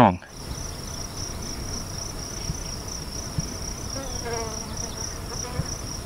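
A singing insect trilling steadily: one high note pulsing fast and evenly, with a few faint low taps under it.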